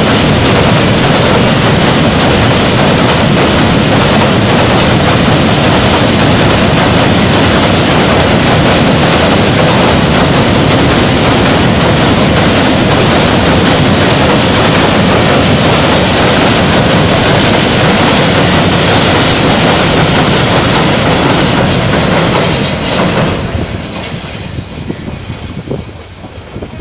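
Passenger train crossing a steel truss railway bridge overhead: loud, steady noise of the wheels running over the steel span, which drops away sharply about 23 seconds in as the train clears the bridge.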